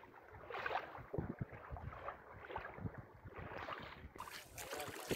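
Shallow water sloshing and splashing in irregular strokes as a wading man drags and lifts a hand fishing net through it. About four seconds in, the sound changes abruptly.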